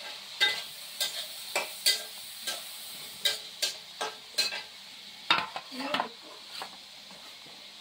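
Steel spoon stirring and scraping wet rice-flour batter in an aluminium bowl, giving about a dozen sharp, irregular clinks against the metal.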